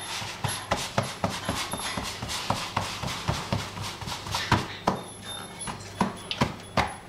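Hands patting and pressing pizza dough out across a metal pizza pan: an uneven run of soft slaps and taps, with rubbing of palms over the dough between them.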